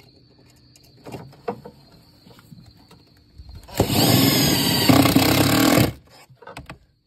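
Makita cordless driver running for about two seconds, driving a mounting screw home, after a few light clicks of handling about a second in.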